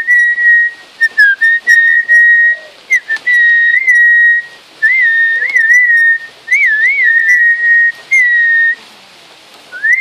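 Pet lory whistling a run of clear notes at about one pitch. Most are held steady, and some break into quick wavering warbles, with short pauses between them.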